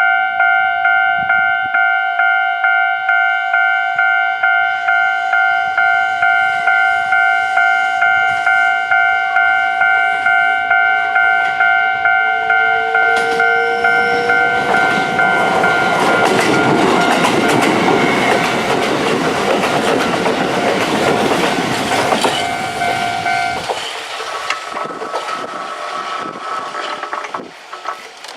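A Japanese level crossing's warning bell rings in a steady pulsing clang, just under two a second. About halfway through, a Kintetsu 22000 and 22600 series limited express train rushes through the crossing with its wheels clattering on the rails. The bell stops as the train clears, and the rush fades away.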